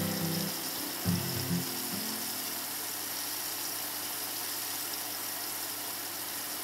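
Cornflour-coated chicken breast deep-frying in hot oil in a wok: a steady sizzle throughout. Background music plays over it for the first two seconds, then the sizzle goes on alone.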